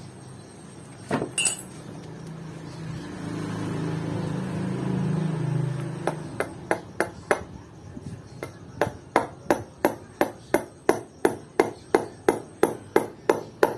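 Rubber mallet tapping a new needle bearing into the hub of a Honda Click 125i's torque drive (driven pulley). A couple of taps about a second in, then from about halfway a steady run of sharp strikes, about three a second, as the bearing is driven home.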